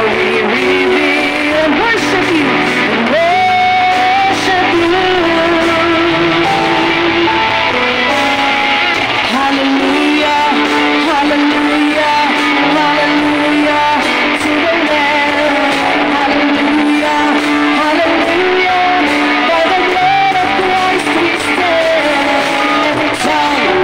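Live church band playing a worship song: a singer on microphone over keyboard, electric guitar, bass guitar and drum kit, at a steady level.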